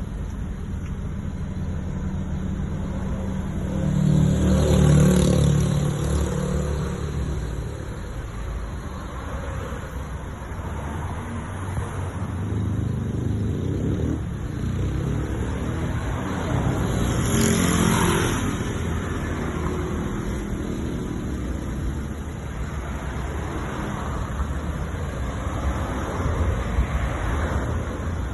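Motor vehicle engine sound with a steady low rumble, swelling louder about four to six seconds in and again around seventeen to eighteen seconds in.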